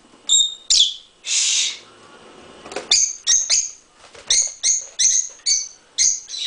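Pet lovebirds giving short, sharp, high-pitched chirps: a few at first, then a quick run of about two to three calls a second from about halfway through. A half-second hiss-like noise sounds about a second in.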